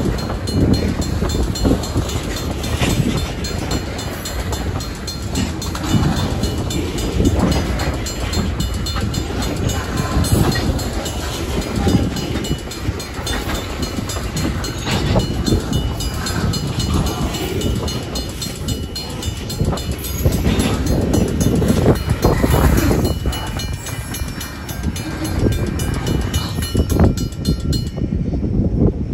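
Freight cars of a passing train, tank cars and covered hoppers, rolling by at a grade crossing: a steady rumble of steel wheels on rail with repeated clacks. The sound thins out near the end as the last car clears.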